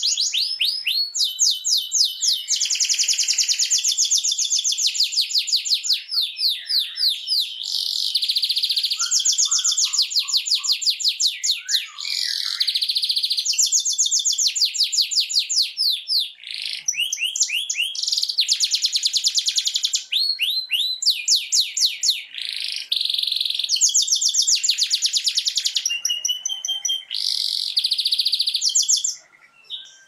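Domestic canary singing a long, continuous song of fast trills. Each phrase is one high note repeated very rapidly, some sweeping up or down, with short breaks between phrases and a brief pause near the end.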